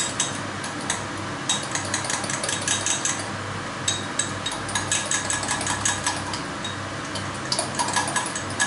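A utensil beating egg-and-cheese carbonara mixture in a glass, clicking rapidly against the glass in runs with short pauses, as the mixture is loosened with pasta cooking water.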